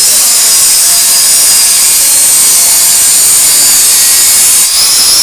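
Angle grinder grinding a weld pass on a steel pipe joint, a loud steady high-pitched grinding with a brief dip near the end. It is cleaning the weld between passes before the next run.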